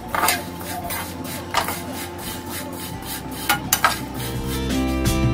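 Perforated steel spatula scraping and clinking against a coated pan while stirring dry vermicelli as it roasts, with a few sharp knocks. Background music comes up louder near the end.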